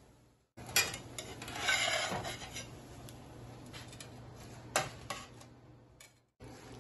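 A metal spatula clicks against a nonstick frying pan and scrapes for about a second as it slides a thin tortilla out. A few sharp clinks of the spatula on an aluminium sheet pan follow.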